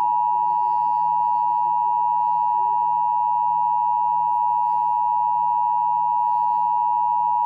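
Emergency Alert System two-tone attention signal: two steady tones sounding together just under 1 kHz (853 and 960 Hz), held at an even, loud level. It is the alarm that announces an incoming emergency alert, here a tornado warning.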